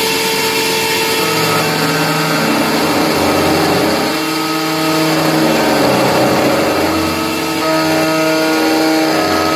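CNC 6040 router milling aluminium: a continuous machining hiss with the spindle's steady whine, and lower tones that switch on and off and change pitch every second or two as the machine moves. It swells slightly a little past the middle.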